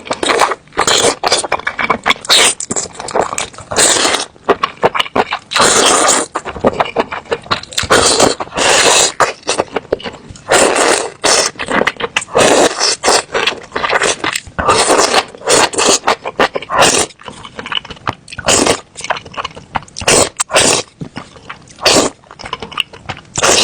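Close-miked eating sounds: loud chewing and mouth noises in quick, irregular bursts, with sharp clicks among them.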